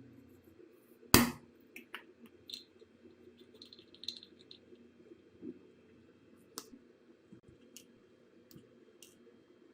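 Small clicks and taps of handling the plastic and metal parts of an LED bulb during repair. One sharp, loud knock about a second in, then scattered fainter clicks every second or so.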